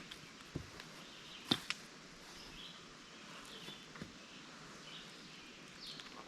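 Quiet outdoor ambience with faint high chirps and a few sharp clicks or knocks, the loudest two close together about one and a half seconds in.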